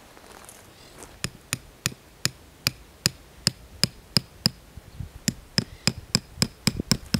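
A tarp stake being driven into the ground with the back of a hatchet head. About twenty sharp, ringing strikes come at roughly three a second, with a short pause partway through.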